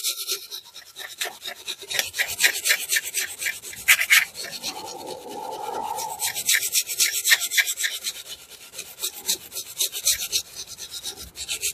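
Hand wire brush scrubbing rust and brake dust off a brake caliper bracket in quick, repeated back-and-forth strokes, cleaning the surfaces the brake pads slide on. About halfway through, the scraping briefly becomes a steadier, lower-pitched rasp.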